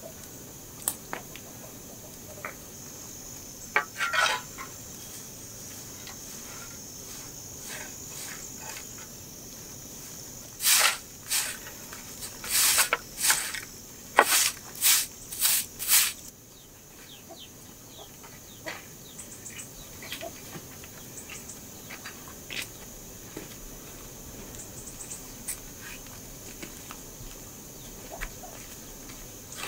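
Straw hand broom swept in quick brushing strokes over ash and a metal shovel, about ten strokes in five seconds near the middle, over a steady high insect buzz.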